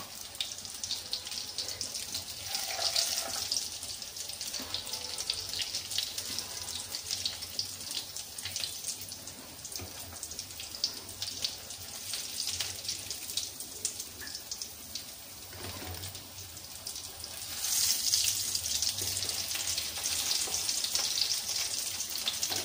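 Masala potato bondas deep-frying in hot oil in a kadai: a steady crackling sizzle that gets louder about two-thirds of the way through.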